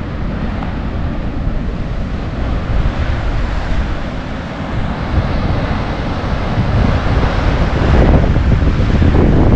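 Wind buffeting the microphone, a steady low rumble that grows louder toward the end.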